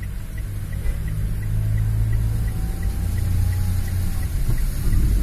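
A car's engine and tyres rumbling steadily, heard from inside the cabin while driving on a wet, flooded road. A faint, even tick repeats about three times a second through it.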